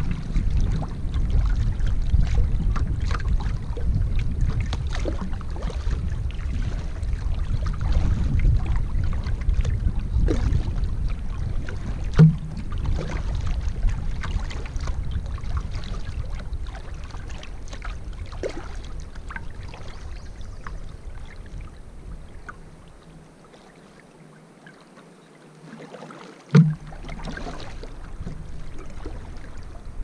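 Canoe moving down a river: low wind rumble on the microphone that fades away after about twenty seconds, light water splashes and drips, and two sharp hollow knocks on the canoe, one about twelve seconds in and one near the end.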